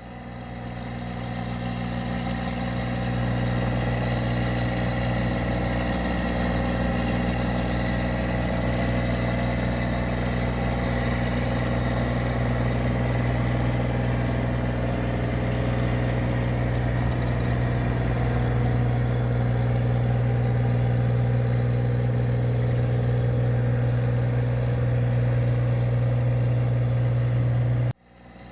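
Engine of a paddy (rice) machine running steadily at constant speed, an even droning hum. It fades in at the start after a cut and breaks off sharply near the end.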